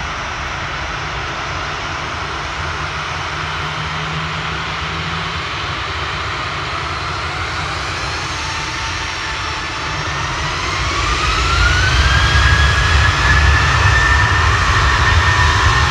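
Airliner engines running with a steady rush of noise. About ten seconds in, a whine rises in pitch and the deep rumble grows louder as the engines spool up to higher thrust.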